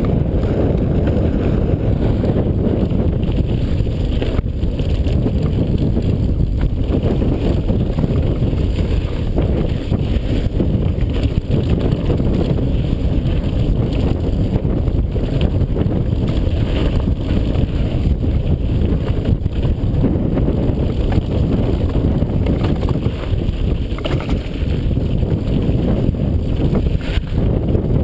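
Wind buffeting the action camera's microphone while a mountain bike rolls fast down a gravel trail, with tyre noise on loose gravel and a few brief knocks and rattles from the bike over bumps.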